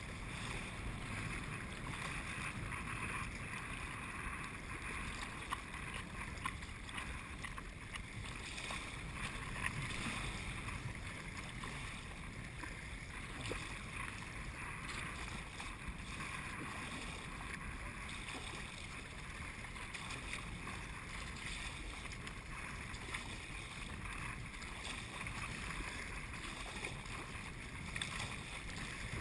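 Steady wash of choppy water and wind against a kayak being paddled, with a few sharper splashes.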